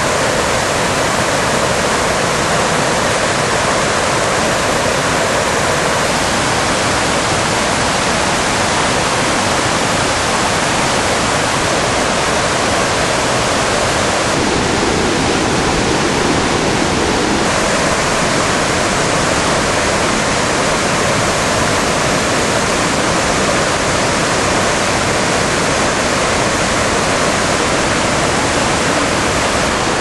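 Loud, steady rushing of a tiered waterfall and its cascades, an even wash of falling water with no let-up. Its tone shifts a little about six seconds in and again for a few seconds in the middle.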